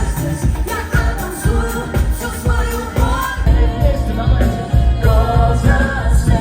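Cover band playing pop music live, with a singer over a steady beat; the bass and drums grow fuller about halfway through.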